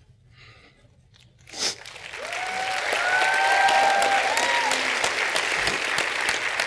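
A congregation breaks into applause about a second and a half in, building quickly and holding steady, with cheering and whoops from the crowd over the clapping as the newlyweds kiss.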